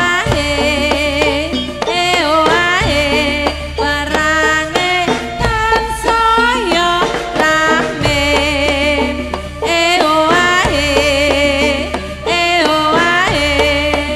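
Javanese jaranan dance music: a melody that wavers and slides in pitch over a steady low bass and percussion.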